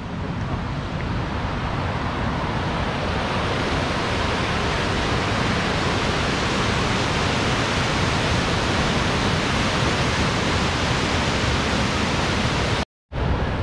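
Mountain stream of milky glacial meltwater rushing steadily over a boulder bed, an even full rushing noise; the sound cuts out briefly about a second before the end.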